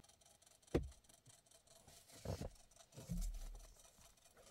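A few faint clicks inside a car, one sharper click about a second in, then a brief low hum a little after three seconds, as the ignition is switched on and the instrument cluster powers up.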